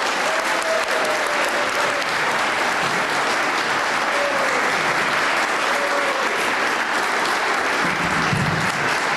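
Audience applauding and cheering steadily at the end of a child's sung performance.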